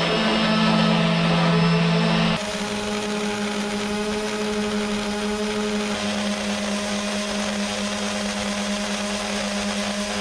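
Electric orbital sanders running steadily against a steel hull's painted topsides, grinding off old paint and rust. A couple of seconds in the hum drops a little in level and settles to one steady tone as a single sander carries on.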